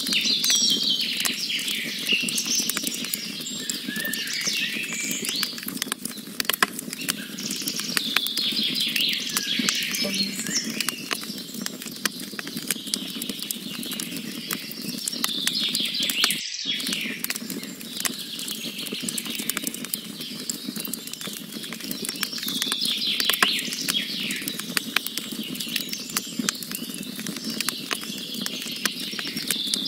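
Wood campfire crackling with many small sharp pops, with birds singing in the background. The sound cuts out for a split second about halfway through.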